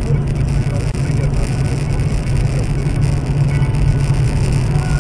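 Steady low drone of a car's engine and tyre noise heard from inside the cabin while driving at highway speed.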